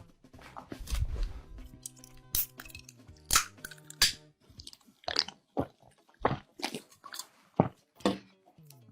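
Close-miked crunchy bites and chewing of food: a string of sharp crunches, with soft music underneath during the first half.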